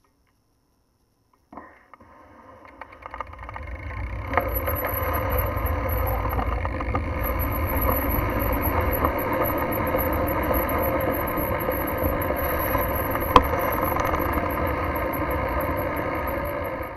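Near silence, then about a second and a half in a steady rushing rumble of riding noise builds up as the bicycle gets moving along the lane. There is one sharp click a little past the middle.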